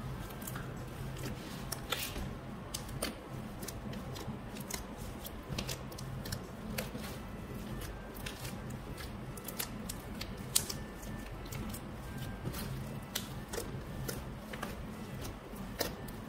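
Mixed fluffy glitter slime being kneaded and pressed by hand, giving a stream of irregular crackling clicks and small squishy pops.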